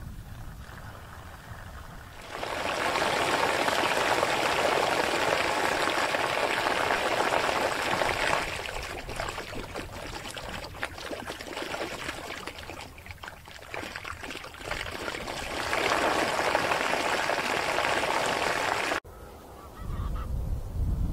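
A large flock of geese honking together in a dense, continuous clamour that starts about two seconds in, thins through the middle and swells again. It cuts off abruptly near the end, and a low rumble follows.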